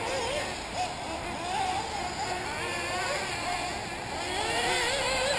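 Several 1/8-scale nitro RC buggy engines racing, their high-pitched whines overlapping and rising and falling as the cars accelerate and brake around the track.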